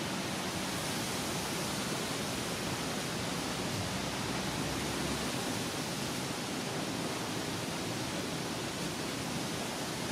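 A steady, even hiss with no distinct calls or knocks in it.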